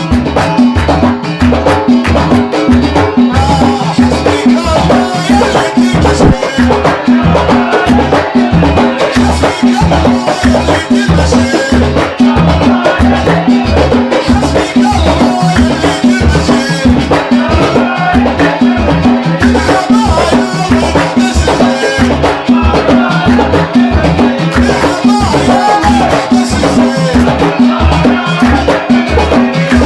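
Gulf folk music in the khabiti style performed live: hand drums beating a steady, dense rhythm under voices singing.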